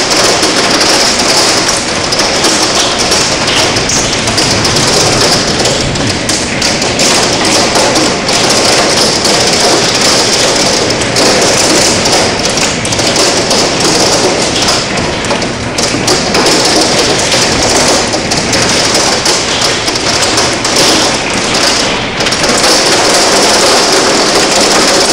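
Hail pelting the window glass and roof in a loud, unbroken clatter of countless rapid hits.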